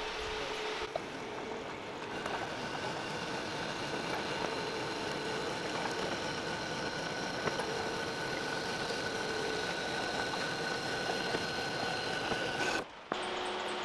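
A power tool running steadily, with a few constant whining tones over a noisy hiss. The sound breaks off briefly near the end.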